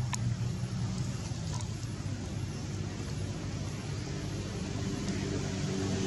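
Steady low engine hum, as of a motor vehicle running somewhere off-picture, with a faint click just after the start.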